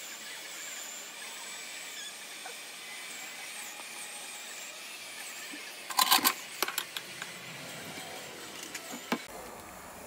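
Hands pulling sticky bulbs from the fibrous core of a halved jackfruit, with the cleaver blade nearby: a quick cluster of clicks and crackles about six seconds in and a few smaller ones near the end, over a steady background hiss.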